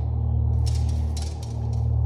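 Steady low electrical hum, with faint ticks and crackles over it from about half a second in.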